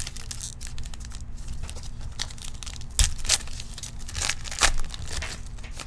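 Plastic trading card pack wrapper being torn open and crinkled, with a few sharper rips, then the cards being handled.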